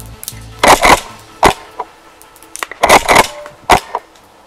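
Tokyo Marui Kel-Tec KSG gas airsoft shotgun being fired and pumped, with faint background music under it. There are two cycles about two seconds apart, each a quick double crack followed by a single sharp click about half a second later.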